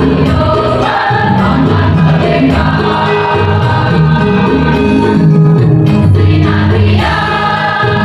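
Mixed choir, mostly women's voices, singing a song in parts with electronic keyboard accompaniment, the notes held and changing without a break.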